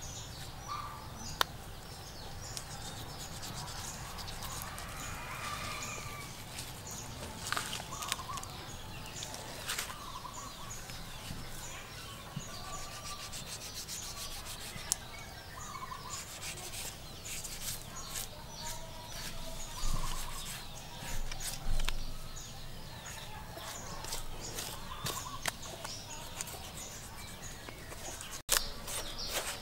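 Kitchen knife slicing and scraping under the hide of a cow's head as the skin is peeled away, a run of short scratchy rasps and clicks. Faint bird calls in the background.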